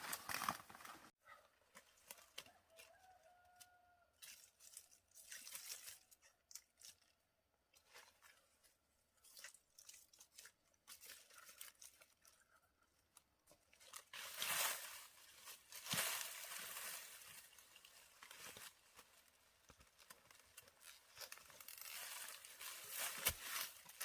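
Intermittent rustling and tearing, in irregular bursts with quiet gaps, louder in the second half. A faint short pitched call sounds about three seconds in.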